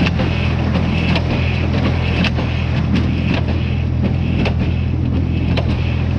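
Tractor engine running steadily, driving a square baler, with a regular clack a little under twice a second from the baler's working parts.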